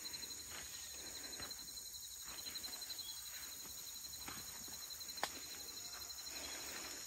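A steady chorus of insects, chirring in high, fast-pulsing trills. Faint scattered rustles and one sharp click about five seconds in.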